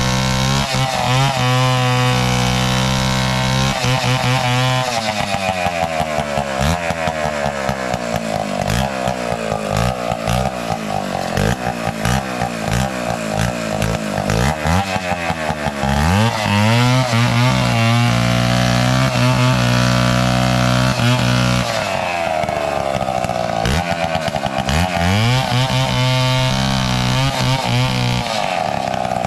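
Chainsaw engine cutting a dead coconut palm trunk. It runs loud and continuously, holding a steady high pitch for several seconds at a time and in between repeatedly dropping and climbing in pitch as the throttle and the load in the wood change.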